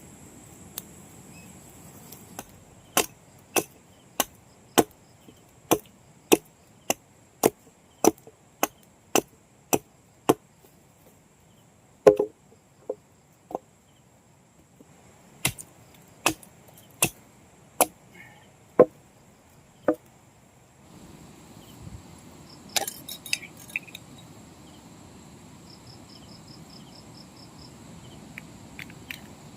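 Chopping: a blade striking wood in runs of sharp, evenly spaced strokes, about two a second, broken by short pauses, with a few lighter knocks near the end. Insects buzz steadily behind.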